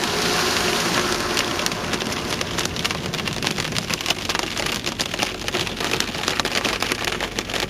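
Heavy rain with hailstones striking a hard surface. The steady hiss of rain gives way about three seconds in to dense rapid clicks of hail hits.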